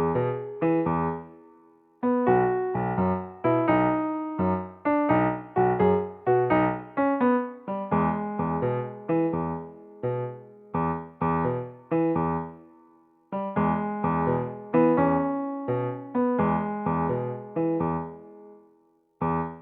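Background piano music: a light tune of struck, decaying notes, with brief pauses between phrases.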